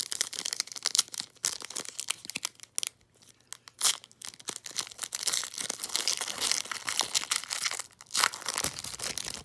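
Foil trading card pack being torn open and crinkled by hand: dense crackling of the foil wrapper, with one sharp, loud rip a little before the middle.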